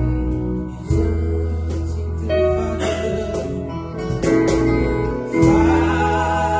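Gospel worship band playing: held bass notes under keyboard and guitar, with percussive cajon strikes and singing.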